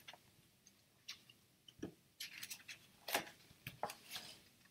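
Faint scattered clicks and short rustles of hands handling something, a handful of brief sounds spread through the pause.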